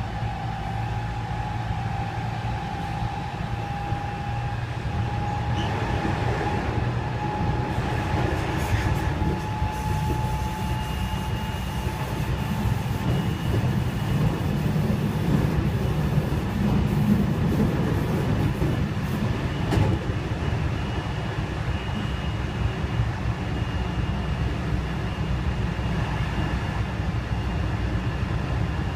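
Inside a JR West 207 series 1000 electric train car running on the line: steady rail and wheel rumble with the traction inverter's whine, which climbs slowly in pitch over the first several seconds as the train accelerates. This car's inverter modulation sound is out of step with the normal unit at the car's other end, so the two sound together in an odd, harmonised acceleration tone.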